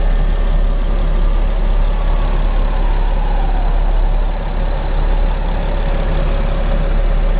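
Vehicle engine idling, a steady low rumble with a faint falling whine about two to four seconds in.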